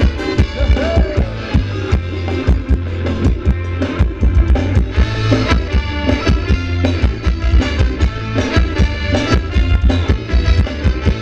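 Live band playing upbeat Thai ramwong dance music, with a steady drum beat and a strong bass line.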